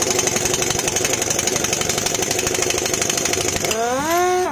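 Pneumatic impact wrench hammering rapidly on a car wheel's lug nut to loosen it. Near the end the hammering stops and the wrench runs free with a rising, then steady whine.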